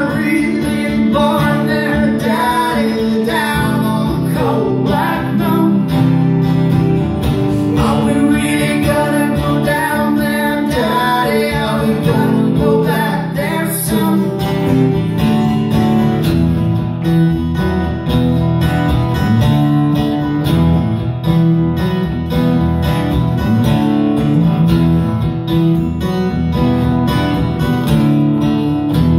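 Live duo music: an acoustic guitar and a second guitar played together, with singing over them through about the first half and the guitars carrying on alone after that.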